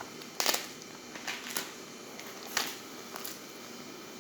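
Kitchen prep of washed leafy greens: about five sharp knocks and clicks spread over the few seconds, with light rustling between them.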